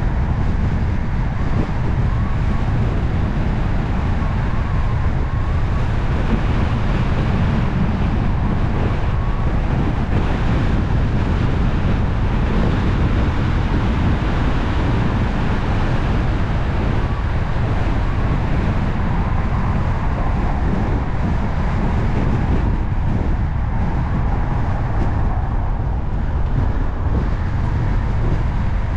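Steady road noise of a car driving along: a constant low tyre-and-road rumble with wind noise over it and no sudden sounds.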